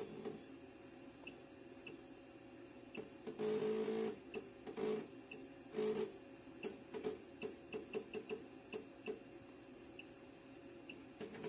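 JACK JK-T1906 pattern tacker being jogged from its programmer: short beeps as keys are pressed, a dozen or so at irregular spacing. Mixed in are short buzzing bursts of the machine's motors moving the feed, the loudest about three and a half seconds in and again near six seconds, over a steady hum.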